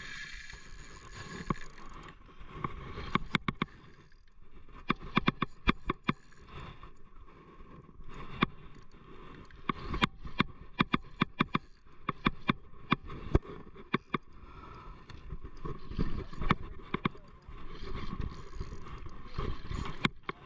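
Spinning rod and reel being worked and cranked, giving a run of irregular sharp clicks and knocks, thickest in the middle, over a low steady rumble.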